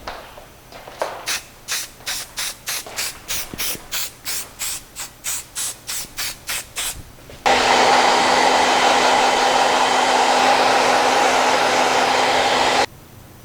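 About twenty quick hissing spritzes from a spray bottle, roughly three a second, then a hair dryer running steadily for about five seconds before switching off abruptly; a stage in setting the stocking cap with spray and drying it.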